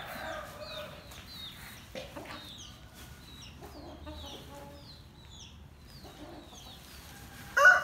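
Chickens clucking, with a run of short, high, falling chirps about twice a second. Near the end a rooster breaks into a loud crow.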